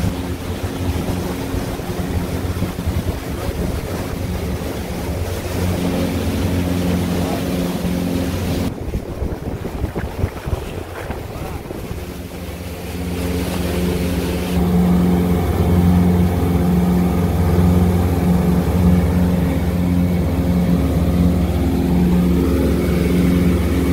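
Motorboat engine running under way, with a steady hum. It drops back and breaks up for a few seconds around the middle, then runs louder for the second half.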